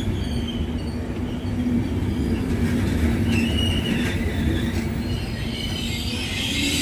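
Train running on the rails: a steady rumble of wheels and cars, with brief high-pitched wheel squeals, the clearest about three seconds in.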